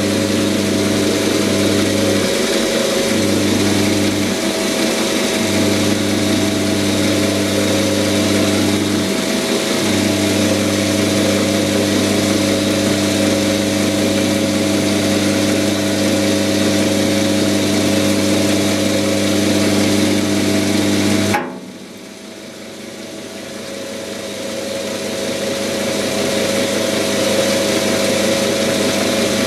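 Quantum 210 x 400 lathe running, a steady machine hum with several held tones over a broad noise. About 21 seconds in the sound drops sharply, then builds back up gradually over several seconds.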